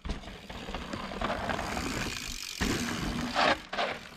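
Mountain bike setting off down a dirt trail: steady tyre and wind noise with the bike rattling, a harder knock about two and a half seconds in and a couple of brief louder bursts a second later.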